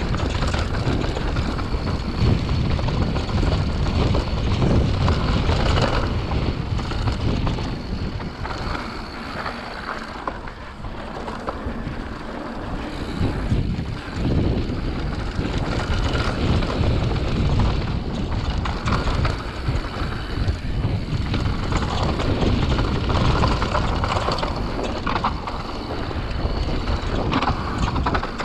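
Wind buffeting the camera microphone during a fast mountain-bike descent on dirt singletrack, mixed with the knobby Maxxis tyres (Assegai front, DHR II rear) rolling over the trail and the bike chattering over bumps. The noise eases for a few seconds about a third of the way in, then picks back up.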